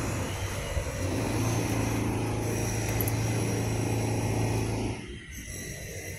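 Drilling machinery running with a steady low hum, cutting off abruptly about five seconds in.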